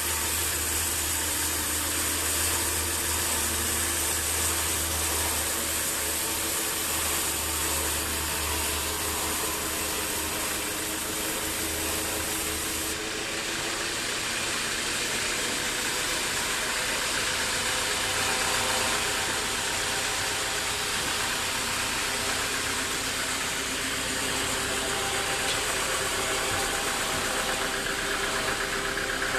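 Sawmill machinery running steadily, a continuous engine-like drone with a few steady hums. The sound changes abruptly about thirteen seconds in.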